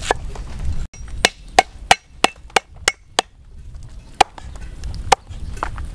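Cleaver chopping on a wooden chopping block: a quick run of sharp knocks, about three a second, then a few slower, spaced strikes.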